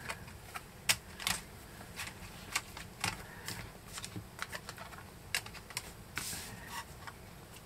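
Plastic blister cards holding 50-gram gold bars clicking and tapping softly and irregularly as they are handled and set down on the table, with a short sliding rustle a little after six seconds.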